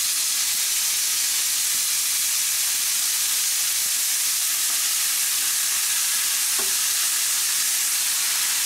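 Morel mushrooms sizzling steadily in hot oil with fried onion in a frying pan as handfuls are dropped in.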